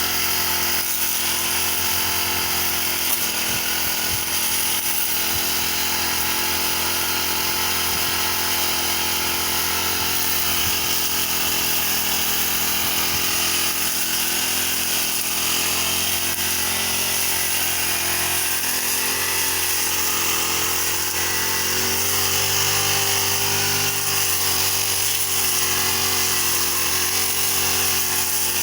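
Petrol brush cutter (grass trimmer) engine running steadily at high speed while cutting grass.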